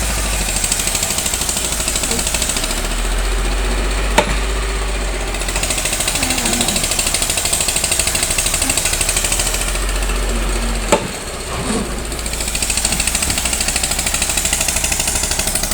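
Rapid, continuous mechanical pounding of a powered hammer driving wooden bridge stakes into the riverbed, over a low engine hum. Two sharper single knocks stand out, about four seconds in and again near eleven seconds.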